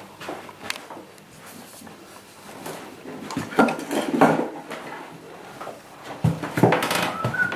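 Handling noises from working with template materials and tools: scattered clicks and light knocks, with louder bursts of scraping and rustling about three and a half seconds in and again near the end.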